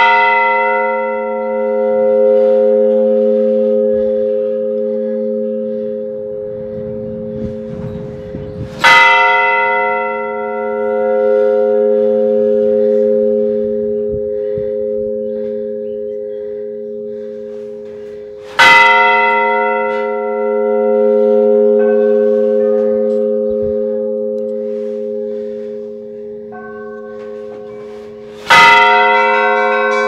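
A large church bell tolling slowly, struck four times about ten seconds apart. Each stroke rings out in a long, humming decay that carries on until the next. Fainter, higher bell notes join near the end.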